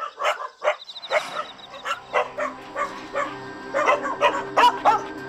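Several caged Jindo and Jindo-mix dogs barking, sharp barks about three times a second, under background music.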